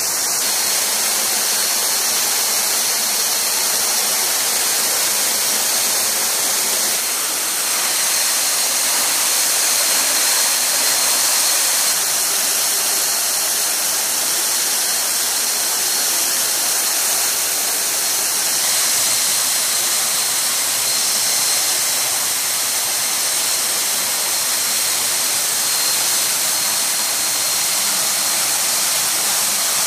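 Steady rush of airflow and jet engine noise inside a C-17 Globemaster III's cargo hold in flight, with a faint steady high whine on top.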